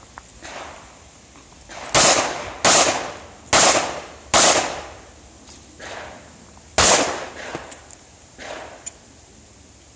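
Handgun shots fired in quick succession: four sharp reports about three quarters of a second apart, then a fifth about two and a half seconds later. Fainter pops come before and after them.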